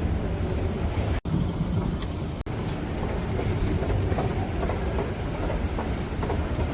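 Steady low rumble of a passenger train running, heard from inside the carriage. It drops out suddenly and briefly twice.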